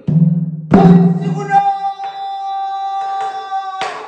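A male pansori singer sings, holding one long high note. A buk barrel drum is struck twice, about a second in and near the end.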